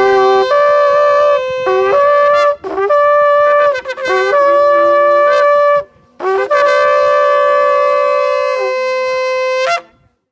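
A shofar (ram's horn) blown in three long blasts with short breaks between them. Each blast wavers and jumps between a few notes.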